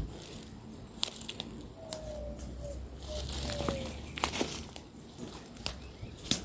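Dry leaves and twigs crunching and crackling, with several sharp snaps scattered through, as someone moves through brush.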